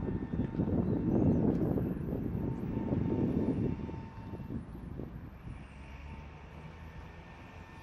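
Trolleybus driving past, a rumble of tyres and running gear that is loudest for the first four seconds and then fades away, with a faint steady high whine.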